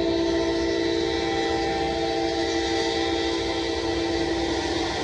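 Diesel locomotive air horn sounding one long, steady multi-note chord, over a low rumble.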